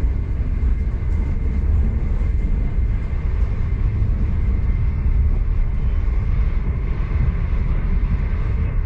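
V/Line passenger train running along the track: a steady low rumble with a faint high whine held throughout, heard from on board.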